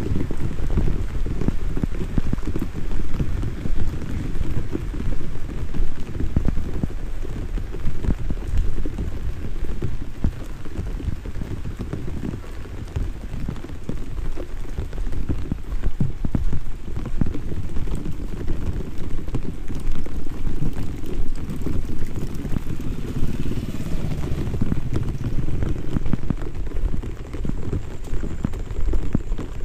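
Drizzle falling steadily: a dense patter of raindrops on surfaces, with most of the sound low and dull.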